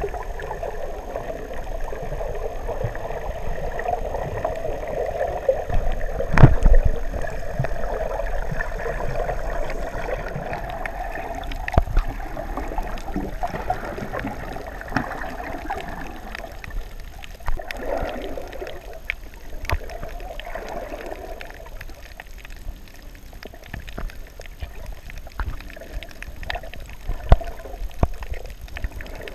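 Underwater sound picked up by a camera held below the surface: a muffled wash of water with scattered clicks and knocks, and a louder thump about six seconds in. A steady drone sits under the first half and fades away after about seventeen seconds.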